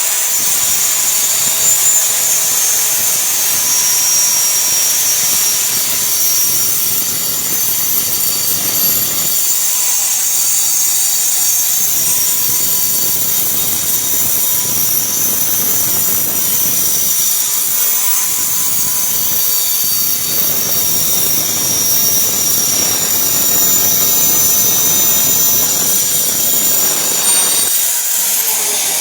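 High-speed electric woodworking power tool running steadily with a high whine, its sound thinning a few times as the load changes, then switching off near the end.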